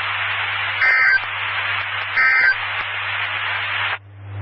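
Radio static hiss with a low hum, broken twice by short warbling two-tone data bursts: the SAME end-of-message code that closes a NOAA Weather Radio EAS alert. The hiss cuts off abruptly about four seconds in.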